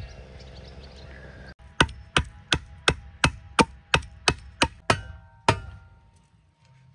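About a dozen even knocks of a hatchet against a wooden shovel handle, roughly three a second, each with a short metallic ring, as the handle is trimmed to fit a shovel. The knocks start suddenly and stop a little past halfway.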